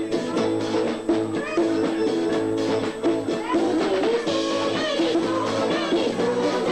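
Live Indian chutney band music: drums keep a steady beat under held instrument notes, with a wavering melodic line coming in about four seconds in.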